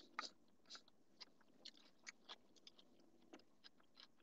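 A person chewing a mouthful of food close to the microphone: faint, irregular mouth clicks, a few each second.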